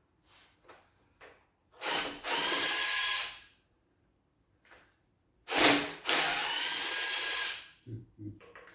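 Handheld power drill run in two bursts, each about one and a half to two seconds long, with a few light clicks before and between them: a power tool spinning out bolts on an engine teardown.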